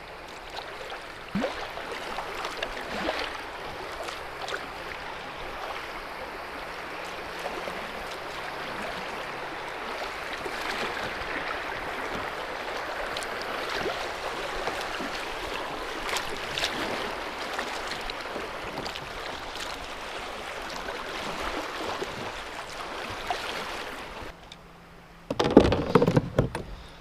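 Water rushing steadily through small creek rapids around a kayak, with scattered faint knocks and splashes. Near the end the rush drops away and there is a short burst of loud thumps.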